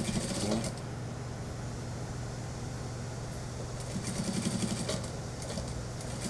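Industrial single-needle sewing machine stitching in short runs: a quick burst near the start and another about four seconds in. A steady motor hum runs between them.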